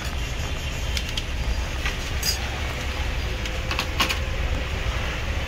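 Several light clicks and knocks of a tower CPU cooler and its fan being handled and lifted out of a PC case, over a steady low rumble.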